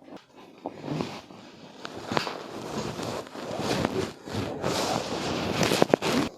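Rustling and shuffling of clothing and bodies against a treatment table during chiropractic manipulation, with scattered short clicks and a few sharp, loud cracks shortly before the end.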